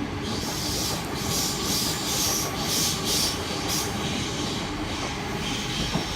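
Sydney Trains Waratah electric train passing underneath at speed: a steady rail rumble, with a hiss that swells and fades about every half second to a second.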